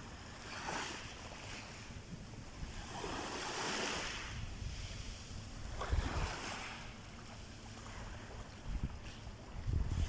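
Sea waves washing in, the surf rising and falling in swells every few seconds, with low wind rumble on the microphone.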